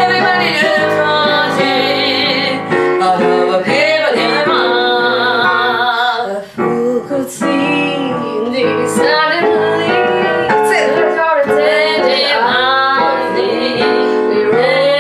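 A woman singing a jazz song, with piano accompaniment under the voice.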